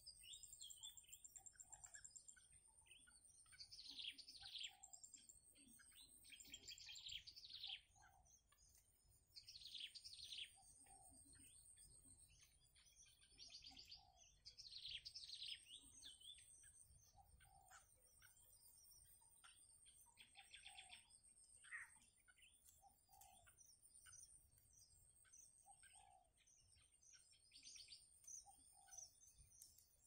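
Soft bursts of rapid high chirping from bittern nestlings, repeating every few seconds. A faint steady high whine comes and goes beneath them.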